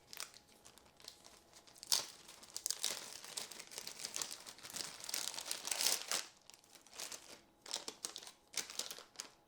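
Bags of parts crinkling and rustling as they are handled and searched through, in irregular bursts with one sharp crackle about two seconds in.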